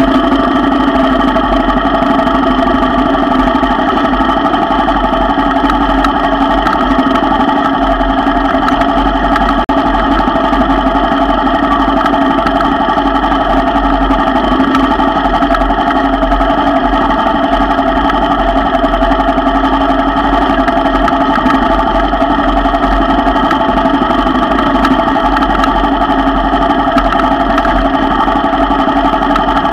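ATV engine running at a steady low speed, a constant drone that holds its pitch throughout.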